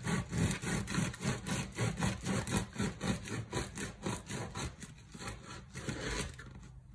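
A long knife sawing through the crisp crust of a freshly baked sourdough loaf on a wooden board, in quick back-and-forth strokes of about five or six a second that grow fainter over the last couple of seconds as the cut goes through.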